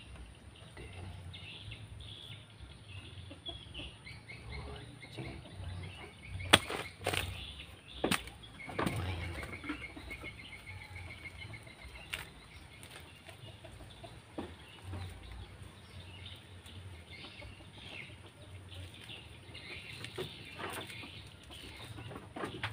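A hoe chopping into damp soil, with a few sharp knocks about six to eight seconds in, then softer scraping and crumbling as clods of earth are broken apart by hand. Birds call in the background.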